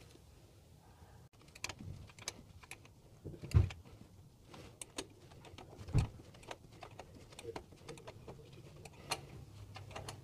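Small spanner clicking and clinking on the clamp bolts of a fuel filter's mounting brackets as they are tightened: irregular light ticks, with two louder knocks about three and a half and six seconds in.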